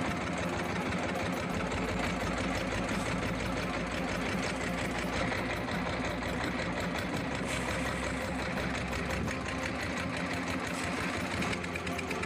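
Small boat engine running steadily with a fast, even rhythm, towing a shrimp trawl net.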